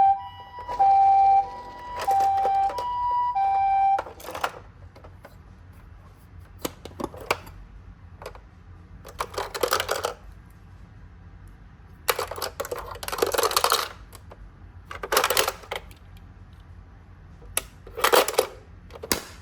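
Two-tone hi-lo ambulance siren alternating between two pitches, stopping about four seconds in. Then toy ambulance minicars rolling and clattering down a cardboard slope in several short rattling runs with scattered clicks.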